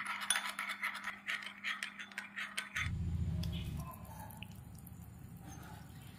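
A fork beating egg in a small glass bowl: quick, repeated clinking and scraping of metal against glass, several strokes a second, stopping near the middle. A brief low rumble follows, then only faint handling noise.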